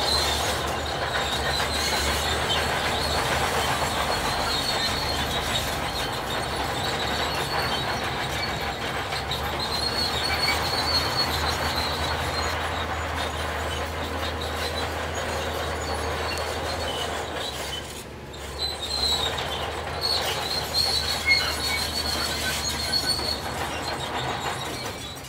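Heavy earthmoving machinery working: a low diesel engine drone under a steady, high metallic squeal and clatter of the kind steel crawler tracks make. The sound dips briefly about three-quarters of the way through.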